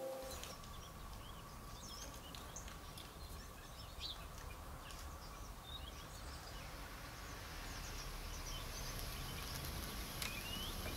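Faint outdoor garden ambience: scattered short chirps and calls of small birds over a low, steady rumble.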